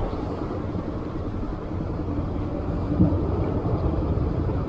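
Steady low rumble of wind on the microphone by the open sea, with one short louder bump about three seconds in.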